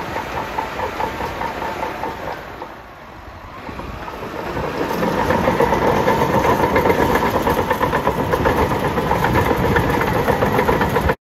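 Bulldozer's diesel engine running with its steel tracks clattering. It dips around three seconds in, then grows louder from about five seconds on, and cuts off suddenly at the very end.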